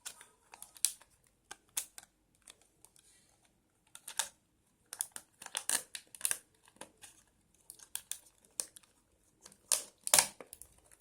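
Hard plastic earphone packaging being cut and pried open, with irregular clicks, snaps and crinkling, the loudest snaps near the end.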